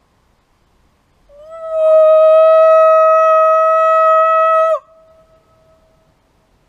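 A man's loud holler through cupped hands, one long call held at a single steady pitch for about three and a half seconds that drops off sharply at the end.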